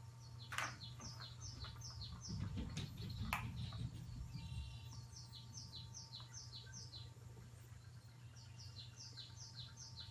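A bird chirping in three runs of short, high, falling chirps, about three a second, with gaps between them. A couple of sharp clicks come about half a second and three seconds in.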